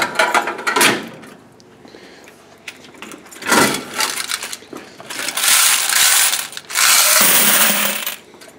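Quarters clattering in the metal coin box of a coin-op stack dryer as it is slid out and handled, then jingling as they are tipped into a metal bucket, in several loud bursts of metal-on-metal rattling.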